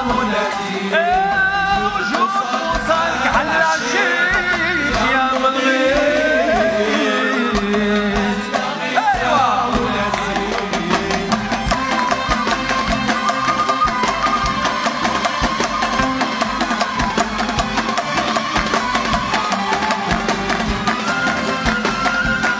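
Instrumental interlude of Moroccan malhun music: violins play an ornamented, gliding melody over a steady hand-drum rhythm.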